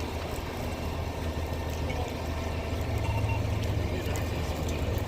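Steady low hum of an idling vehicle engine under an even hiss; the hum grows louder about three seconds in.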